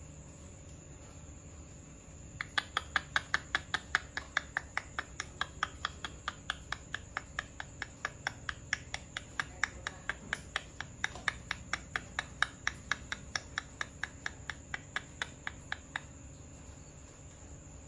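A long, even series of short sharp clicks or chirps, about four or five a second, starting a couple of seconds in and stopping shortly before the end, over a faint steady high whine.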